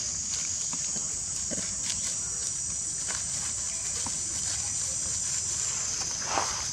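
Steady high-pitched drone of insects, with dry leaves rustling and crackling under long-tailed macaques moving across the leaf litter. A short monkey call sounds near the end.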